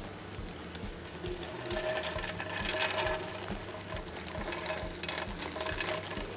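Kitchen handling sounds: light, irregular clicks and taps of utensils and dishes as a salad is mixed and plated.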